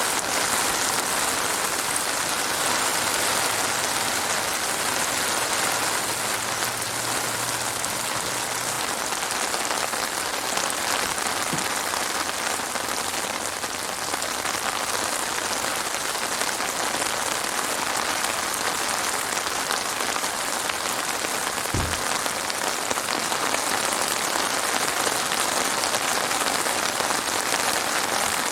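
Heavy rain falling steadily on a surface: an even, unbroken hiss of raindrops, with a faint low hum early on and a single soft low thud about three quarters of the way through.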